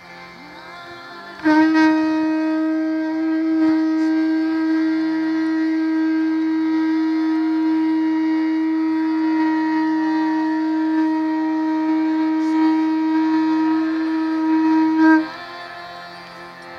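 Conch shell (shankha) blown in one long, steady note of about fourteen seconds, swelling just before it cuts off, over a softer background drone.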